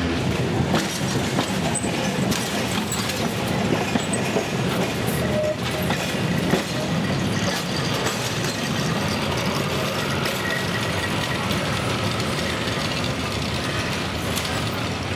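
A pair of coupled electric tramcars running past on curved street track: a steady rumble of wheels on the rails with frequent clicks and knocks.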